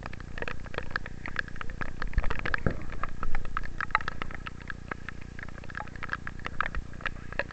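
Heavy rain, heard as dense irregular crackling taps of raindrops close to the microphone over a low steady rumble.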